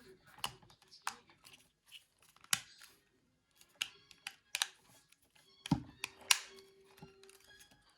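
Scattered sharp clicks and taps of plastic mobile-phone parts being handled and pressed into place. The loudest pair comes in the second half, with a faint steady tone under it for about two seconds.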